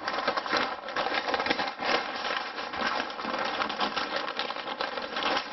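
Butcher paper crinkling and rustling in a steady run of crackles as it is folded around a brisket by hand.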